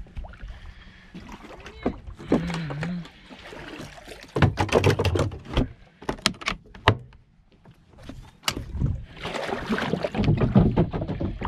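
Shallow water splashing and sloshing around a stand-up jet ski as it is handled in the water, with irregular sharp knocks against the hull. No engine is running.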